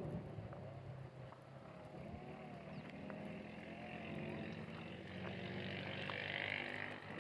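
Kite humming in the wind, a thin wavering tone that slowly rises and falls in pitch, over a steady low drone.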